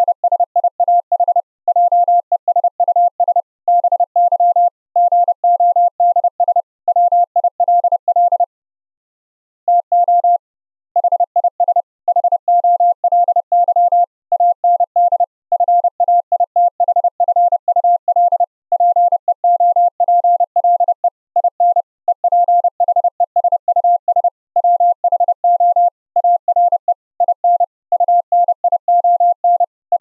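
High-speed Morse code: a single steady mid-pitched tone keyed rapidly on and off in dots and dashes by a computer keyer. It is received over the internet as Opus-coded audio played on a Raspberry Pi 4. The tone breaks off for about a second some nine seconds in, then resumes.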